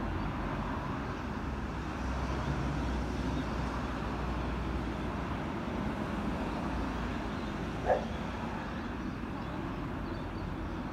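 Steady low rumble of distant traffic, with one short dog bark about eight seconds in.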